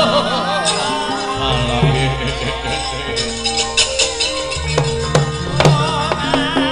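Javanese gamelan music playing as wayang kulit accompaniment: held metallophone and gong tones with a wavering melodic line over them, and a few sharp percussive strikes in the second half.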